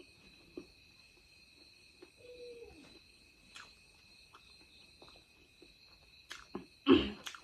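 Crickets chirring steadily in the background as several unbroken high tones, with faint scattered clicks and a short loud thump near the end.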